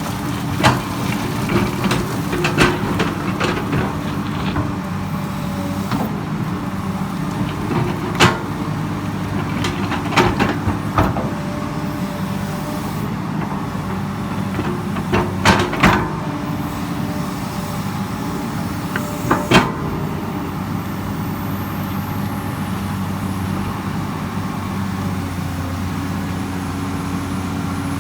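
Komatsu PC200 hydraulic excavator's diesel engine running steadily under digging load, with a handful of sharp metallic knocks and clanks from the working gear. The knocks come in small clusters, the last just before the twenty-second mark, and only the steady engine follows.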